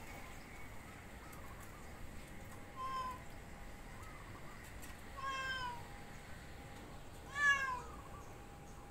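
Domestic cat meowing three times, the third call the loudest, rising then falling. The cat is stuck on a roof and, as the owner says, afraid to come down.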